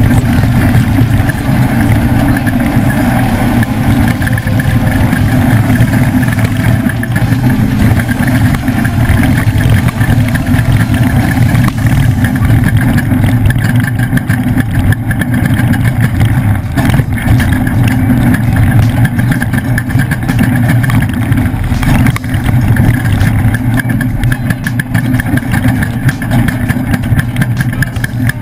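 Off-road trophy truck's engine running steadily, a loud low drone, with a few sharp knocks, the clearest about 22 seconds in.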